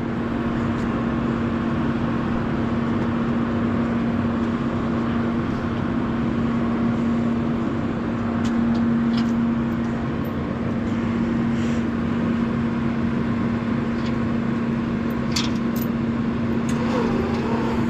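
Hydraulic power unit of a hoof-trimming chute running with a steady hum, its electric motor and pump holding one even pitch, with a few light clicks and knocks from the chute now and then.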